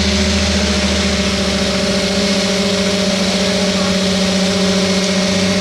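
An engine running steadily at a constant speed, with a low rumble that fades about two seconds in.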